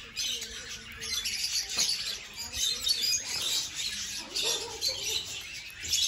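Rosy-faced lovebirds chattering, with shrill squawks and chirps coming thick and fast.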